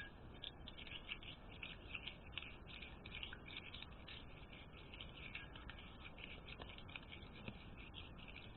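Faint, quick, irregular scratching of a spoon stirring salt into a mix of liquid detergent and liquid hand soap in a bowl.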